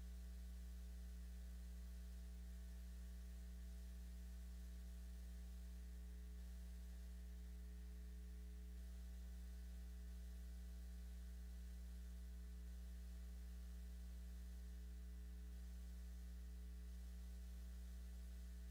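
Faint, steady mains hum: a low electrical drone that does not change, with nothing else over it.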